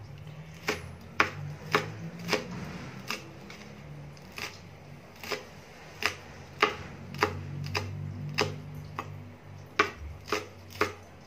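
Kitchen knife chopping bird's eye chillies on a plastic chopping board: sharp knocks of the blade striking the board, about two a second at an uneven pace.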